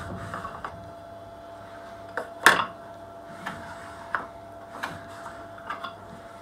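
A hand plane on a shooting board shaving the mitred end of a picture-frame stick, its quick strokes dying away within the first second. Then a few scattered wooden knocks and clicks as pieces and the plane are handled on the bench, the loudest a single sharp knock about two and a half seconds in.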